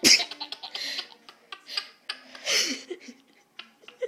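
A loud, sudden adult sneeze right at the start, followed by a baby's short bursts of laughter and breaths.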